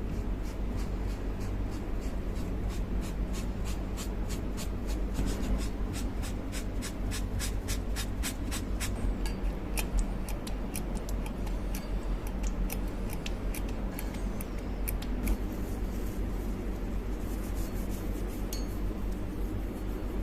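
A run of light, sharp clicks and scraping from hand tool work, coming a few times a second and thinning out near the end, over a steady low hum.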